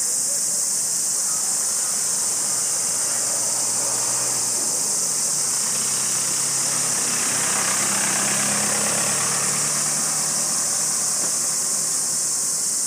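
Steady high-pitched chorus of forest insects. A motor vehicle's engine rises in pitch about four seconds in, runs louder through the middle and fades out near the end.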